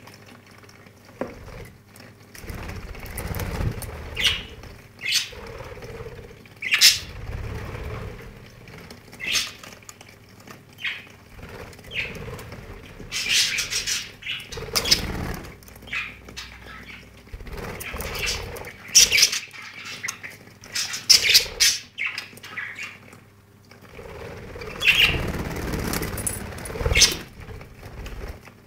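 Pet budgerigars chirping in short, irregular calls and flapping their wings while bathing under a trickle of water in a bird shower.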